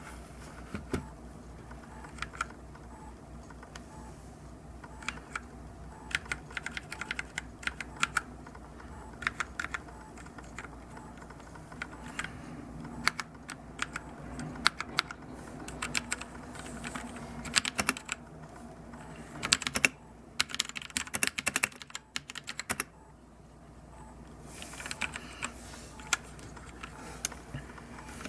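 Keys of a Royal Kludge RK71 mechanical keyboard being pressed and typed on in irregular runs of clicks, with pauses between, the fastest and loudest flurry of presses about three quarters of the way in.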